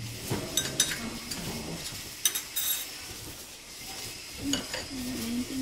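Plastic-gloved hands mixing and squishing a soft cream mixture in a ceramic bowl, a steady rustling with a few sharp clicks of hands or fingers against the bowl.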